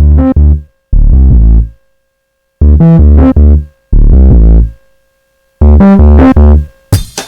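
An isolated bass part playing short riffs of a few notes, separated by gaps of silence. Each phrase is driven hard into saturation, so it sits flat at full level, rich in added harmonics. Just before the end a drum kit comes in.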